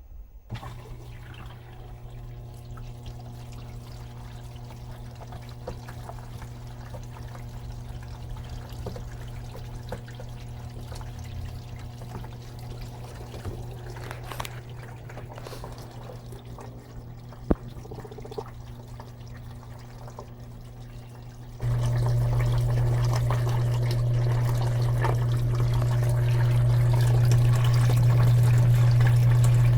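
Electrolux LM13Q top-load washing machine filling with water for the rinse: water pouring into the tub over a steady low hum, growing much louder about 22 seconds in.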